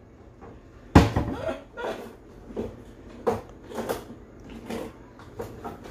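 Spice jars and packets handled on a kitchen cabinet shelf while someone rummages for a spice: one sharp knock about a second in, then a string of lighter clicks and rattles.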